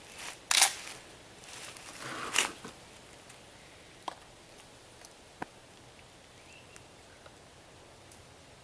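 Stoeger M3000 semi-automatic shotgun being loaded and readied: sharp metallic clacks and short rattles of shells going into the magazine and the action being worked, the loudest about half a second in and again about two and a half seconds in, followed by a few light clicks.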